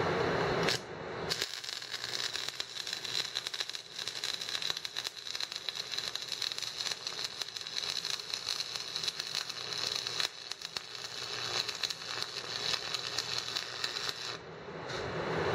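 Stick (shielded metal arc) welding with a 6013 coated electrode: the arc crackles and sizzles steadily as the bead is run. The even sound is the sign of an arc held at the right length.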